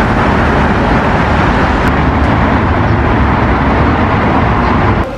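Road traffic noise: a steady, loud rumble of passing cars and buses, cutting off sharply near the end.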